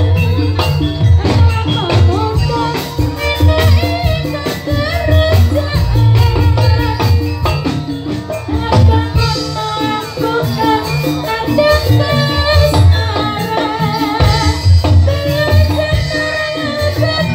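Jaranan senterewe music, the East Javanese horse-dance ensemble, playing loudly: dense percussion over a pulsing low beat under a wavering melody line.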